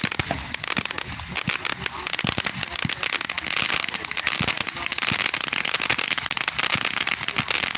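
Consumer fireworks crackling: a dense, rapid run of small pops and snaps without a break.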